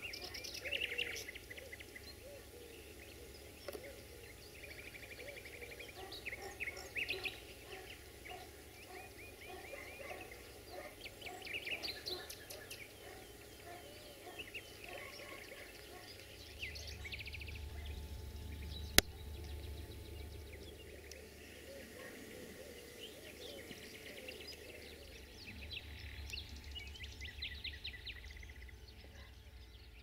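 Birds chirping and trilling in a quiet outdoor setting, over a low rumble that swells and fades twice. A single sharp click cuts through about two-thirds of the way in.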